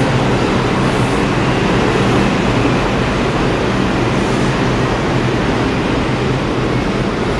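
R142 subway train running with a loud, steady rumble.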